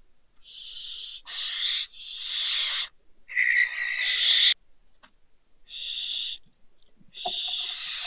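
Barn owls giving a series of about six harsh, hissing screech calls, each half a second to a second long, the fourth, about three seconds in, the loudest.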